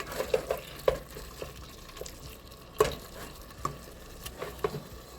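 Ground beef frying in a little oil in a pan, sizzling steadily, while a utensil stirs and breaks it up with irregular scrapes and taps on the pan. One sharper knock comes a little past halfway.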